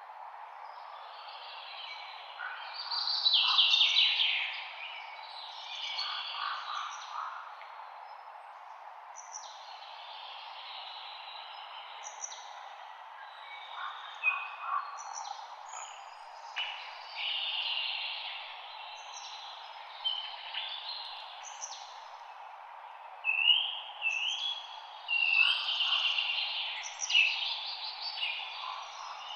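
Several songbirds singing and chirping in overlapping phrases, busiest a few seconds in and again near the end, over a steady soft hiss of light wind in the leaves.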